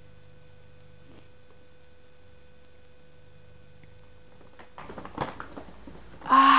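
A paper gift bag rustling and crackling as a book is pulled out of it, starting about five seconds in over a faint steady hum. Near the end comes a short, loud exclamation from a voice.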